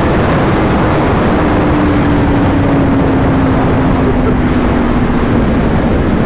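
Loud, steady wind rush over a motorcycle rider's helmet camera at highway speed. From about a second in, a motorcycle engine note can be heard underneath, falling slowly in pitch as the bike eases off.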